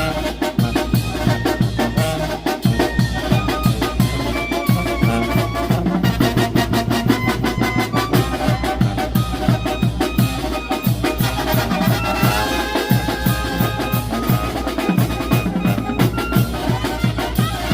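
Mexican brass band playing: brass melody over bass drum and snare with a steady beat.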